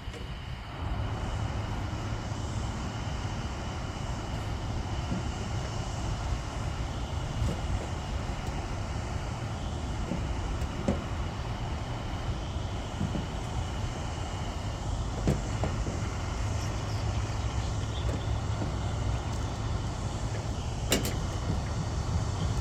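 Gas soldering torch burning steadily with a constant hissing rush, stepping up in level under a second in, with a few light sharp taps from the work on the copper gutter.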